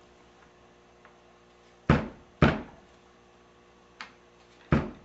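Grand piano keys knocking down and back as they are checked with test weights for downweight, in two pairs of wooden thuds about half a second apart, with a faint tick between them.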